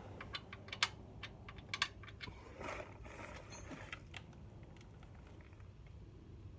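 Light metal clicks and clinks of sockets and a wrench being handled: a quick irregular run of them in the first two seconds, then a few scattered ones.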